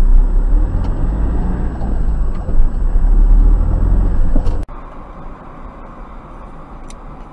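Interior road and engine noise of a moving car as recorded by a dashcam, loud and low-pitched, dropping suddenly to a quieter, thinner road noise about four and a half seconds in.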